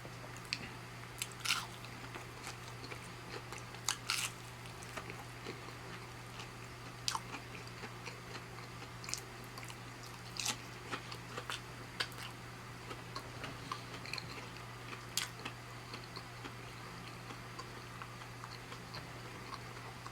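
A person biting and chewing plant-based chicken close to the microphone: scattered short mouth clicks and crunches, over a faint steady low hum.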